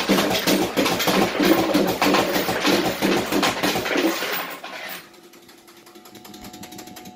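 Bell-Fruit Cash Explosion fruit machine sounding its electronic effects over a rapid, even clatter. This cuts off about four and a half seconds in, leaving a quieter machine hum with faint steady tones and ticking.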